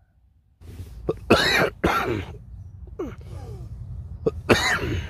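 A man coughing into his hand, four harsh coughs about a second apart, the loudest near the start. He is feeling unwell.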